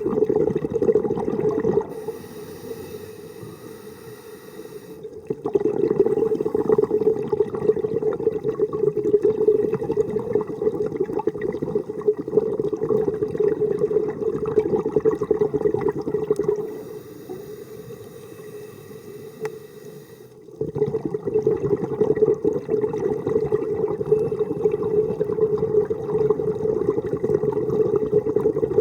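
Underwater scuba breathing through a regulator: long stretches of rushing, gurgling exhaled bubbles, broken twice by a quieter hissing inhale of about three seconds.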